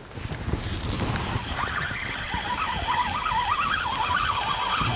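Spinning reel being cranked to retrieve a weighted bottom rig, its gears giving a wavering whine that rises and falls with the turns of the handle, starting about a second and a half in.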